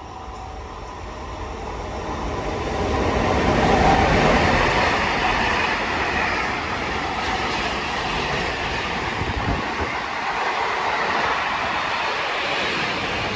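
A train passing on the line. It grows louder to a peak about four seconds in, then keeps up a steady running noise of wheels on rails.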